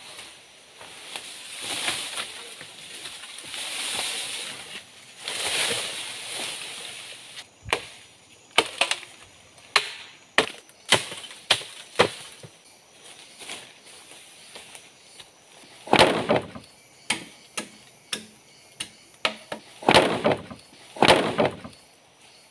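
Machete chopping green bamboo: a stretch of rustling, swishing leaves, then a run of sharp strikes about two a second, then a few louder crashes near the end.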